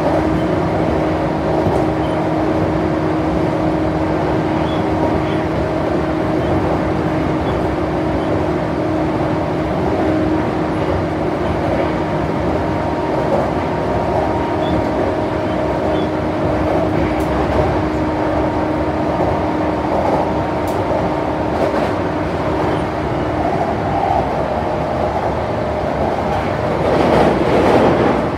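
Running noise inside a JR East E235 series motor car at speed: the rumble of wheels on the rails with a steady whine from the traction motors and gearing. A louder rush of noise swells near the end.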